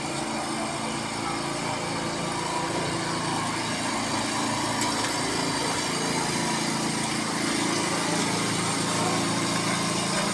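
Small engine running at a steady speed, a continuous drone that grows a little louder in the second half.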